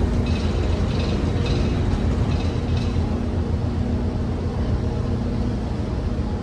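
Ship's engines running with a steady low hum, as the ferry manoeuvres slowly into its berth. Faint high-pitched sounds repeat about twice a second during the first three seconds.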